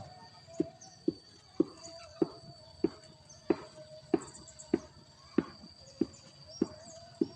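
A small mechanism clicking regularly, a little under two clicks a second, over a faint steady hum.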